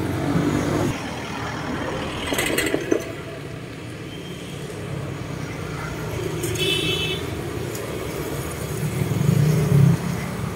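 Road traffic passing, a steady low rumble of engines and tyres that swells as a vehicle goes by near the end. A few sharp clicks come about a quarter of the way in, and a brief high-pitched tone about two-thirds through.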